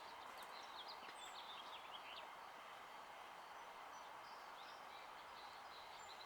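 Faint outdoor quiet with a few distant small bird chirps in the first couple of seconds.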